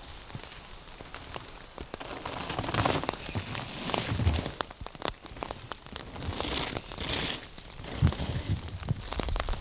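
Steady rain falling, with many scattered drips ticking and a few dull thumps about four and eight seconds in.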